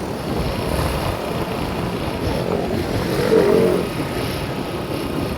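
A motor vehicle on the move: steady engine and road noise.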